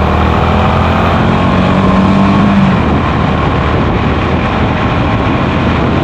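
Honda CB350's air-cooled single-cylinder engine and exhaust running steadily at road speed, mixed with heavy wind rush on the bike-mounted microphone. A steady engine hum rises slightly in pitch for the first few seconds, then turns rougher and more wind-dominated.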